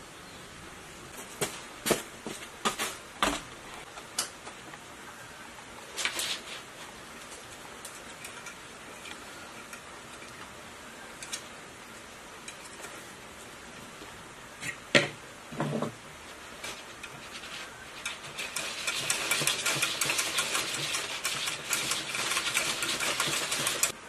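A hand-cranked coil-winding machine and its plastic winding form being worked while rewinding a pump motor's coils: scattered light clicks and knocks as the wire and form are handled. About five seconds from the end, a fast, steady rattle of ticks starts and then stops abruptly.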